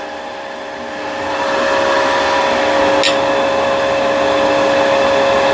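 Wood lathe running with a ball gouge cutting the spinning wood: a steady hiss of the cut that builds about a second in, over the lathe's steady whine.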